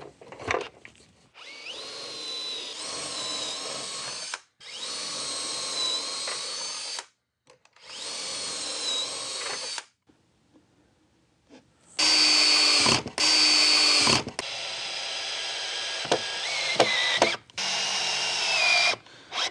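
Cordless drill boring pocket holes in 1/2-inch plywood through a pocket-hole jig: three runs of a few seconds each, the motor whine dipping in pitch as the bit bites. After a short pause come two brief, louder runs and a longer one, as the drill drives the small pocket-hole screws to join the drawer box.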